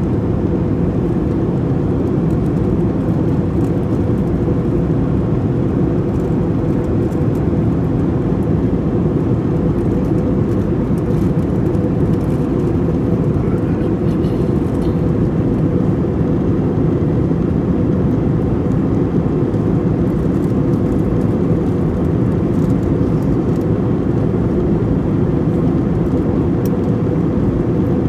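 Steady airliner cabin noise in flight: the even, low noise of jet engines and airflow, with a faint steady hum running through it.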